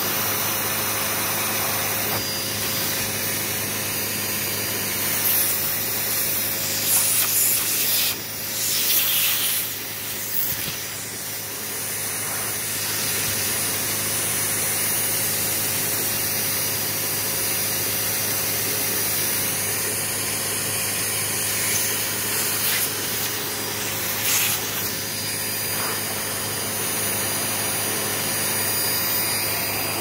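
Vacuum cleaner running steadily on carpet, picking up bingo chips and fluff, with a few louder surges of high hiss about a quarter of the way in and again near the end.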